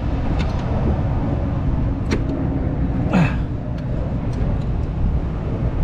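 A few sharp metallic clicks as a cartridge fuse is pushed and worked into a loose spring-clip fuse holder, over a steady low rumble.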